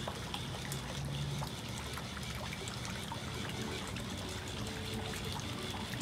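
Steady trickling and splashing of water as a small homemade remote-control boat is driven across a swimming pool.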